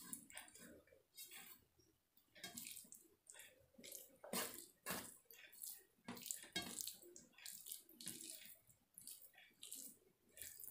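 Wet, squishy eating sounds of a meal eaten by hand: fingers mixing and scooping fried rice and noodles on a steel plate, with chewing, in irregular short bursts.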